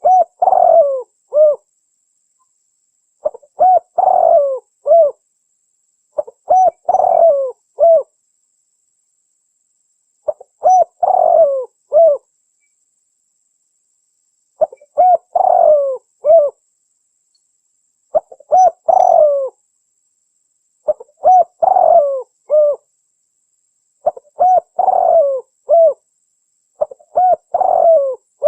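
Spotted dove (tekukur) cooing: a short phrase of three or four coos, repeated about every three seconds, nine or ten times in a row. It is the call of a female, according to the uploader, played to lure males.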